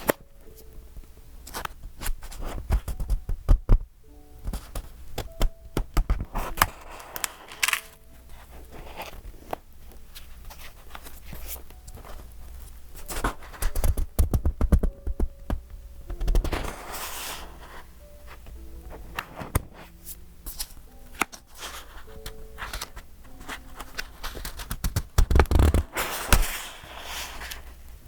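Pages of a decorated A5 paper journal being turned and handled: rustling page flips in several longer swells, with many soft thunks and taps as the book and its pages are pressed down.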